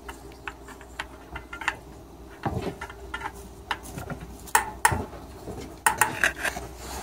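Irregular metallic clicks, clinks and taps from a spoke key on a bicycle wheel's spokes and nipples as the spokes are loosened to true the wheel, with a few louder knocks partway through.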